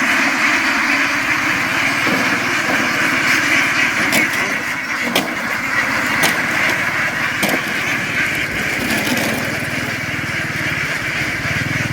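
A large flock of ducks quacking all at once in a dense, buzzing din, over a boat's small engine running, which grows louder near the end. A few sharp knocks ring out in the middle.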